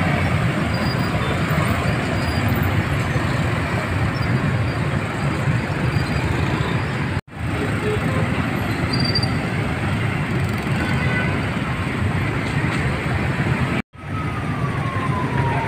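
Dense motorbike and scooter traffic on a city street: a steady rumble of many small engines passing. The sound cuts out briefly twice.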